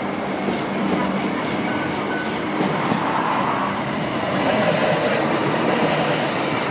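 Hong Kong Light Rail trams pulling away from the stop. A low steady hum fades out a few seconds in, then the running noise of a single Phase 1 car rises as it passes close by, loudest about five seconds in.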